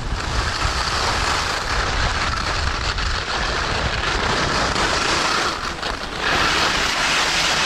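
Skis sliding and scraping over packed snow, with wind rushing over the camera's microphone as the skier moves downhill; the noise gets louder about six seconds in.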